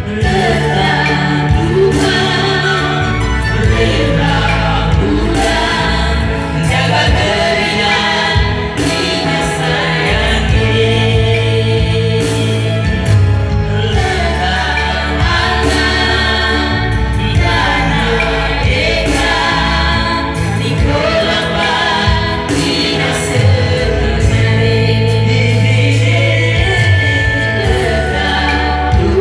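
A man and a woman singing a duet into microphones, backed by an electronic keyboard with steady bass notes and a regular beat.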